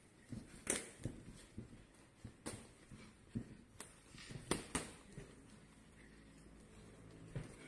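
Boxing gloves landing punches in sparring: a string of sharp slaps and thuds over the first five seconds, then a lull and one more hit near the end.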